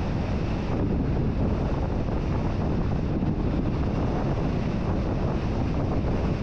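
Wind buffeting the microphone as a steady, even rush of noise, heaviest in the low end, with no distinct events.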